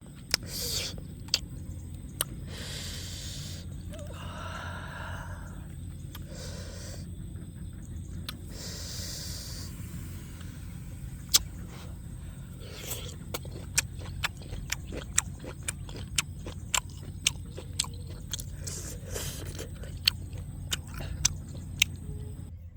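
Sharp clicks and crackles, coming thicker in the second half, with a few short scraping or crunching noises, over a steady low rumble.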